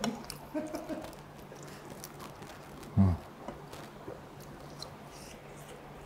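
A man chewing spicy braised chicken stew with potato, with soft wet mouth clicks, and a short low grunt about three seconds in.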